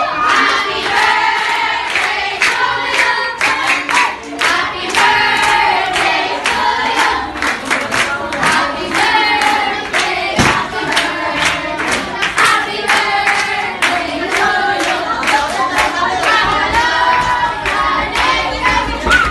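A group of voices singing a birthday song together, with steady hand clapping along, about three claps a second.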